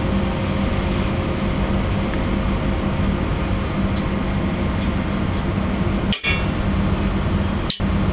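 Loud steady buzzing hum with hiss, cutting out briefly about six seconds in and again near the end.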